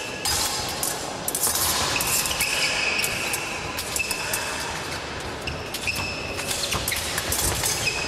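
Fencing blades clicking and clashing against each other, some strikes leaving a brief metallic ring, mixed with the fencers' footwork stamping and shuffling on the piste.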